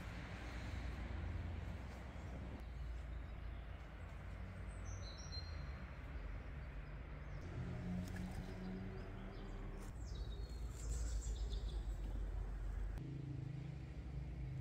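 Outdoor ambience: a steady low rumble, with a small bird chirping briefly about five seconds in and again a few times around eleven seconds.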